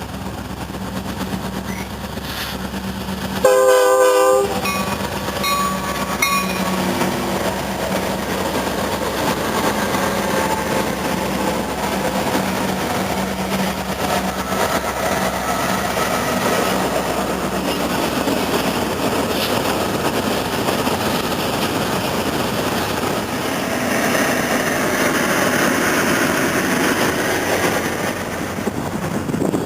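Train horn sounding one short blast about three and a half seconds in, then the train rolling by with steady rumbling wheel-on-rail noise that grows louder near the end, where the horn starts to sound again.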